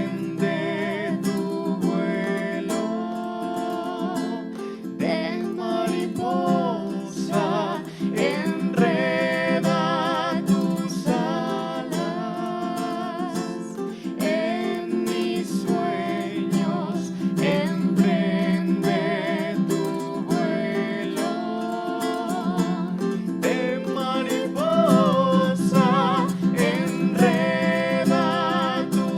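Live acoustic guitar music, with a melody line held with vibrato over steady low notes.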